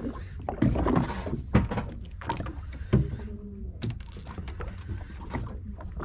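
Small boat at sea: a steady low rumble with irregular short rushes and knocks on top, the loudest about a second in and again near three seconds.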